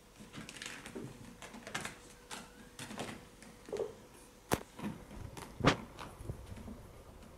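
Kittens scrambling and play-fighting on a carpeted cat tree and floor: irregular scuffs, scrabbles and soft knocks, with two sharp thumps about a second apart past the middle.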